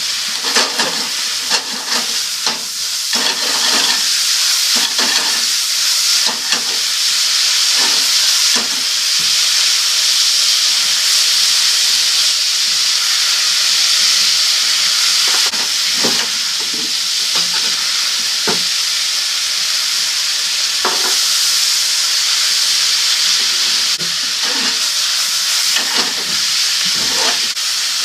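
Yakisoba noodles, pork and vegetables sizzling in a hot frying pan just after the sauce goes in, while the sauce's moisture cooks off. A steady hiss, broken by irregular clacks and scrapes of wooden chopsticks tossing the noodles against the pan.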